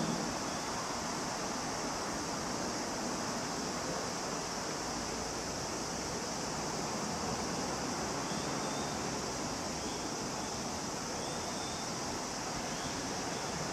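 Steady hiss of falling rain over a low distant rumble, with a few faint, short high squeaks in the second half.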